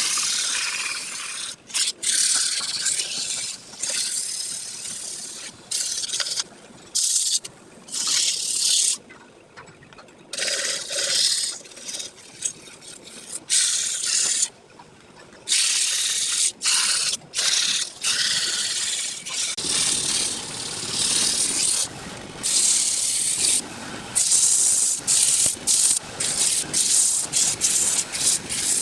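Wood being worked on a spinning lathe: a hissing scrape of tool or abrasive against the turning piece, in stretches that start and stop abruptly many times. In the last third the stretches are shorter and come in quick succession.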